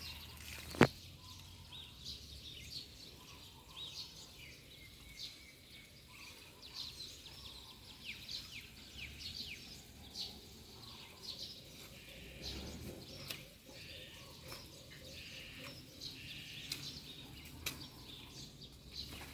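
Small birds chirping in many short, quick calls, with a single sharp click a little under a second in.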